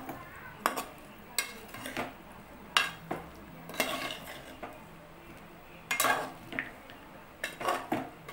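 A steel spoon stirring chilli chicken in a metal pot: irregular scrapes and clinks of the spoon against the pot, with a quieter stretch about five seconds in.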